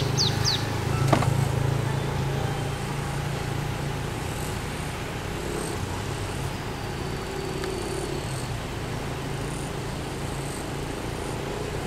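Steady drone of a vehicle's engine and road noise, heard from aboard the moving vehicle. A few short high chirps sound right at the start, and a single knock comes about a second in.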